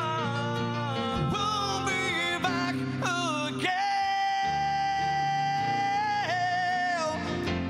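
Live acoustic rock band: a man sings lead over strummed acoustic guitars. He holds one long high note through the middle, then slides down off it.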